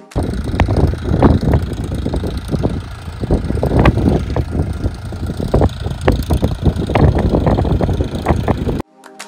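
Tractor running as it pulls a sowing implement across the field, heard under heavy wind buffeting on the microphone. The sound cuts off suddenly near the end.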